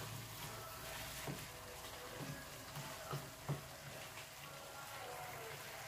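Thick dinuguan of pork and black pudding sizzling faintly in a stainless steel pan while a wooden spoon stirs it, with a few soft knocks of the spoon.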